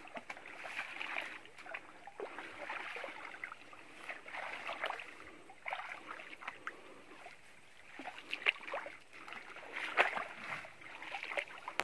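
Footsteps wading through a shallow stream: irregular splashes and swishes of water, with brushing through tall grass.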